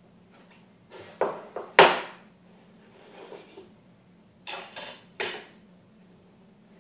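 A wooden storage box being opened and handled: a few short wooden knocks and clatters, the sharpest about two seconds in, and a few more about five seconds in.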